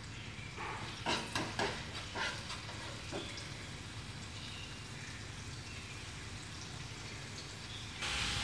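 Minced garlic frying in oil in a pan, a steady soft sizzle, with a few sharp clicks of a metal ladle against the pan in the first three seconds. The sizzle gets louder near the end.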